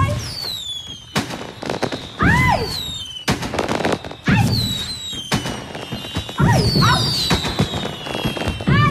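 A string of sharp bangs, about one a second, mixed with high whistling tones that fall in pitch and shorter tones that rise and fall.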